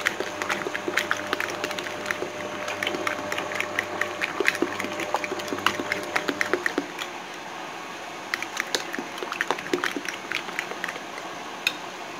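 Metal fork whisking beaten eggs in a bowl: rapid, irregular clicks of the fork against the bowl with wet sloshing of the egg, thinning briefly a little past halfway before picking up again.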